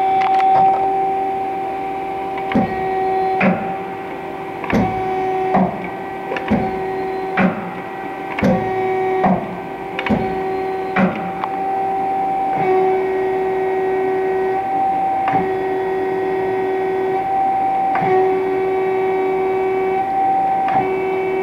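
Hwacheon Hi-Tech 200A CNC lathe running: a steady whine that shifts slightly in pitch every second or two, with a string of sharp clicks about once a second through the first half.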